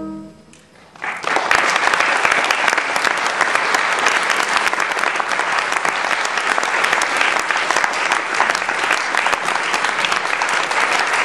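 A wind band's final held chord dies away. About a second later the audience breaks into steady applause.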